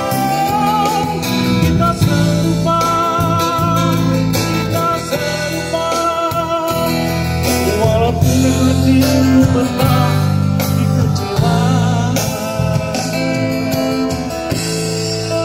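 Live acoustic guitar accompanying a man singing a slow Malay song with vibrato, amplified through a small street PA speaker.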